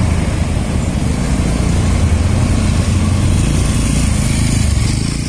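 Steady low rumble of motor vehicle engines in street traffic.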